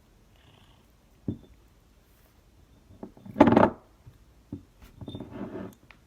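Handling noises: a single knock about a second in, a louder burst of clattering and rustling about three and a half seconds in, then another knock and a spell of scraping near the end.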